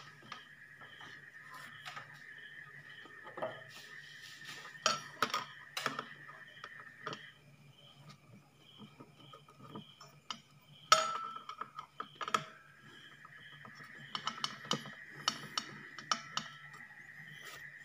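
Scattered clicks, taps and knocks of a screwdriver and metal parts as an amplifier board with a finned aluminium heatsink is unscrewed and handled, with one sharper knock about eleven seconds in. A faint steady hum runs underneath.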